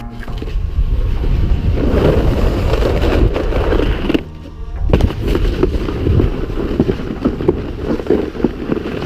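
Plastic saucer sled scraping and rattling fast over packed snow, with wind buffeting the microphone. The scraping drops away for under a second about four seconds in, then comes back with a hard hit, and runs on loudly.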